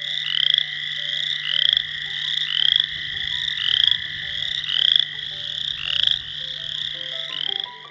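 Male western chorus frog (Pseudacris triseriata) calling: a series of short, rising, pulsed trills, about one a second. This is the advertisement call males give to attract mates.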